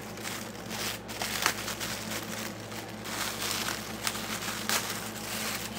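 Clear plastic bag crinkling and rustling in irregular bursts as hands work it off a radio receiver.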